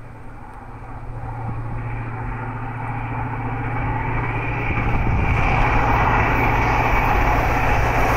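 A train approaching on the main line, its running noise growing steadily louder for about five seconds and then holding loud.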